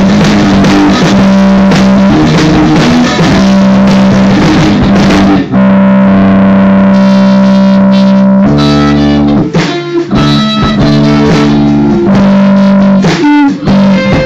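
A band rehearsing a rock song on distorted electric guitars, very loud. Dense strumming for about five seconds, then a chord held for about three seconds, then choppy stop-start chords.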